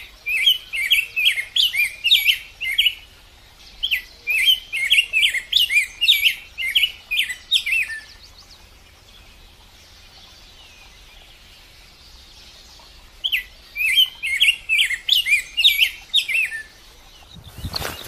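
A songbird singing three phrases of quick, repeated high chirps, each a few seconds long, with a quiet stretch of several seconds before the third. A brief loud rush of noise comes at the very end.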